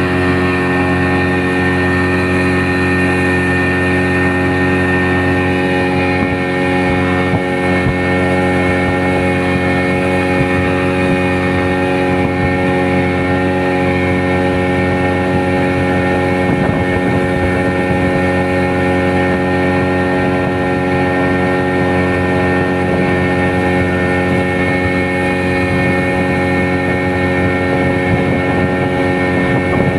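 Small boat engine running steadily at a constant speed, with no change in pitch.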